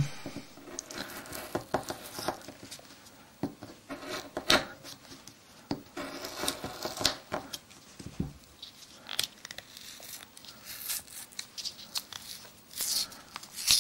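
A sharp knife cutting down through the paper case of an old 12-gauge shotgun cartridge, with irregular crackling, scraping and clicks as the tough paper gives way.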